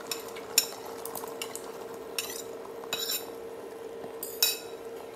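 Metal spoon clinking and scraping against a ceramic bowl, a few separate knocks, as beaten eggs are poured into a hot oiled frying pan and sizzle faintly. A steady hum runs underneath.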